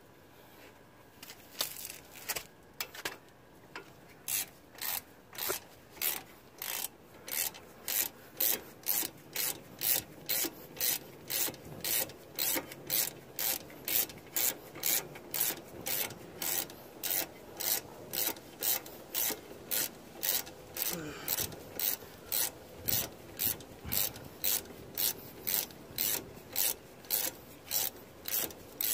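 Hand ratchet backing out the top brake caliper bolt: a few scattered clicks, then from a few seconds in a steady run of ratchet clicking at about two swings a second.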